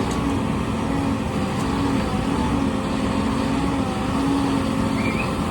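Construction machinery engine running steadily: a continuous low rumble with a held, slightly wavering hum.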